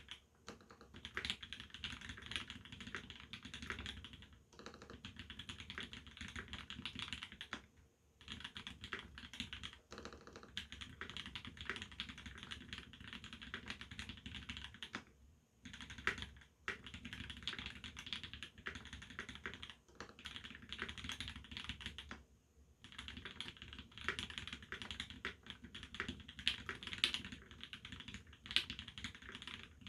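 Fast, continuous typing on a TX87se tenkeyless mechanical keyboard with a brass plate, lubed C³ Tangerine R2 linear switches and GMK Wob ABS keycaps, the keystrokes running together in dense runs broken by short pauses every few seconds.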